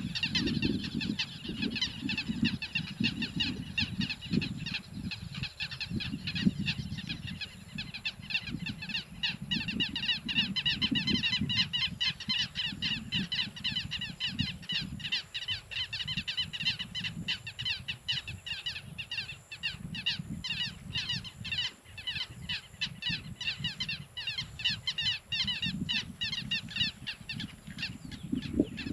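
A dense chorus of many birds calling over one another, with rapid, shrill, repeated notes throughout and a low, uneven rumble underneath.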